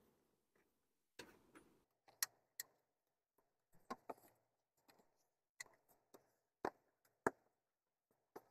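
Faint scattered clicks and light knocks of a 2005 Porsche Cayenne's plastic air filter box cover being worked by hand onto the air box, about ten in all with near silence between.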